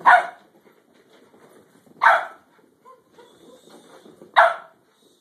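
Dog barking at play: three short, sharp barks about two seconds apart, over faint scuffling.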